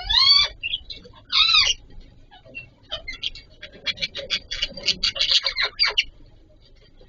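Budgerigars calling: two drawn-out pitched calls in the first two seconds, then a quick run of short chirps from about three to six seconds in.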